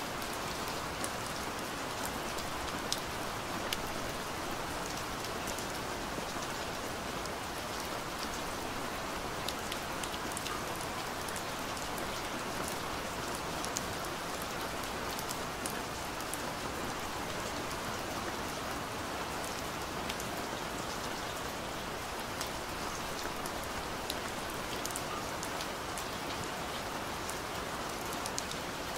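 Steady rain: an even hiss with scattered sharp ticks of individual drops.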